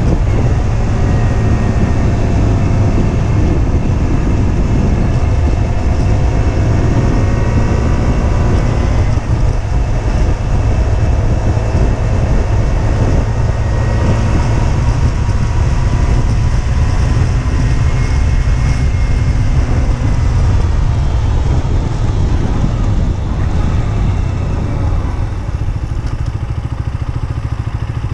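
Husqvarna Svartpilen 125's single-cylinder four-stroke engine running under way, its note rising and falling with the throttle, over a heavy rumble of wind on the microphone. It gets a little quieter in the last few seconds as the bike eases off.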